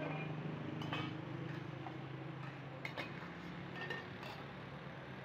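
Metal lids clinking as they are set on and against metal stew pots, a handful of light, separate clinks, over a steady low hum.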